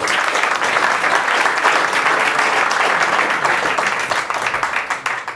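Audience applauding: a room full of people clapping steadily, tapering off near the end.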